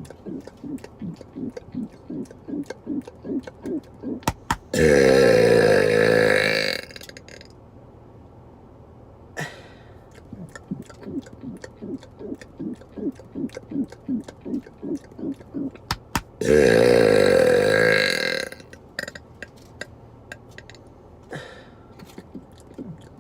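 A man lets out two long, loud burps, each lasting about two seconds, the second coming about twelve seconds after the first. A steady ticking, about two and a half clicks a second, runs between them.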